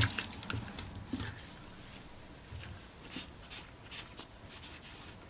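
Quiet handling noises: scattered faint clicks and brief rustles as the small metal hood latch is handled.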